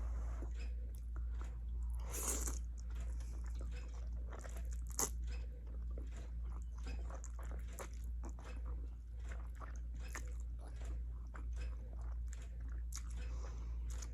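Close-miked eating of cheesy ramen noodles: wet chewing and mouth clicks throughout, with a longer, louder noise about two seconds in and a sharp click about five seconds in.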